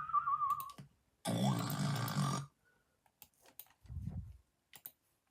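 Snoring: a rattling snore with a whistling tone that falls and wavers, dying away just under a second in, then a second loud rattling snore lasting about a second. Near the end come a few faint clicks and a short low thump.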